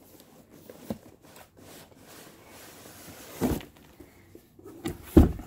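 Cardboard boxes being handled, one slid out of the other: steady rubbing and scraping of cardboard, with two dull thumps about three and a half seconds in and near the end, the second the louder.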